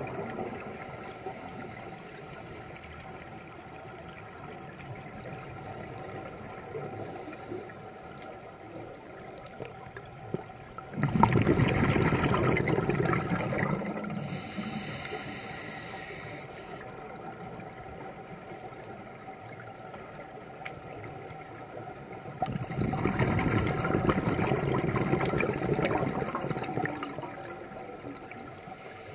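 Scuba regulator exhaust bubbles heard underwater, rushing loudly twice, each burst a few seconds long, over a steady low underwater hiss.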